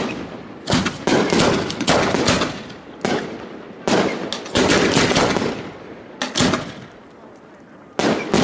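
Fireworks display: aerial shells bursting one after another, a sharp bang every half second to a second, each one fading away quickly. A short lull comes near the end, then another loud burst.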